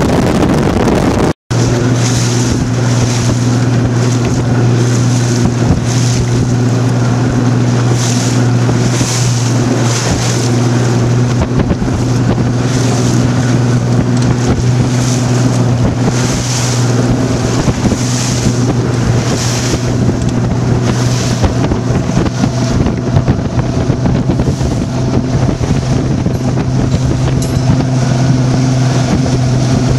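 Bass boat running under power on open water: a steady engine hum with wind buffeting the microphone and water rushing past the hull. The sound drops out for an instant about a second and a half in.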